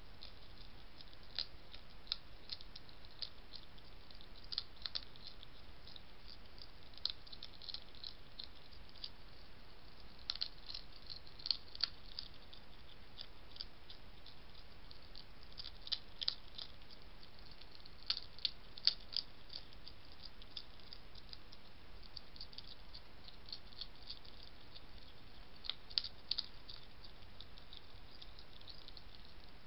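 A European hedgehog eating dry biscuit food from a dish: irregular crisp crunches and clicks, in small clusters, over a steady hiss.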